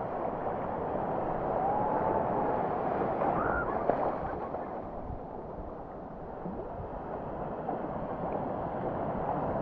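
Ocean water sloshing and washing around a surfer's helmet-mounted GoPro, a steady dull rush of surf that eases a little midway and then builds again.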